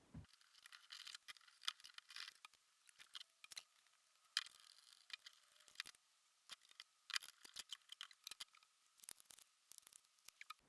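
Faint, irregular clicks, taps and light rustles of small parts being handled.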